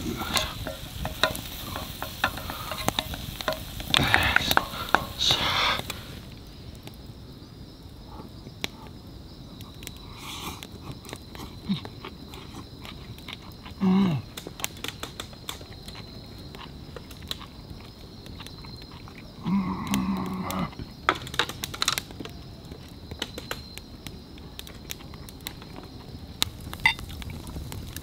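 Noodles and offal sizzling in a skillet over a wood fire for the first few seconds, then quieter crackling from the fire with scattered sharp pops. Twice, a man gives a short low 'mm' while chewing, about halfway through and again a little later.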